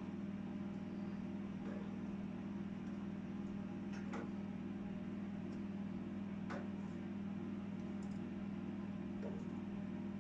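Steady low hum of a running egg incubator, with a few faint clicks of eggs being set into a plastic egg tray.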